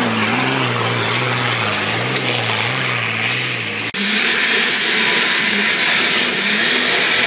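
Nissan Patrol 4x4 diesel engine labouring up a loose-rock climb, its revs rising and falling every half second or so as the throttle is worked. An abrupt cut about four seconds in switches to a noisier, more distant take of the same engine pulling hard.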